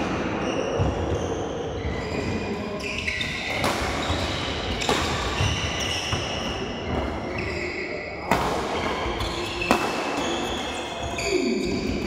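Badminton rackets striking the shuttlecock in rally play: four sharp hits in two pairs, each pair about a second and a half apart, over a steady background of court noise.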